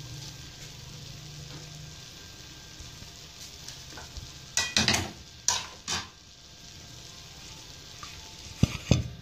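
A pot of sweet rice sizzling steadily on the stove, with a cluster of knocks of metal cookware being handled about halfway through and two sharp clicks near the end.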